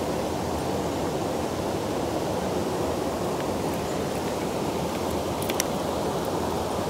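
Steady rushing of river water running past the wading angler, with a couple of faint metal clicks from a chain fish stringer being handled about five and a half seconds in.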